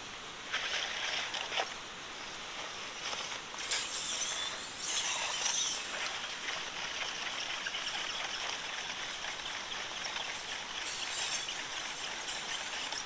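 Rustling, scraping handling noise as a brand-new yellow tape is pulled and fiddled with by hand. It comes in short bursts near the start and around four to six seconds in, then fainter crackling over a steady hiss.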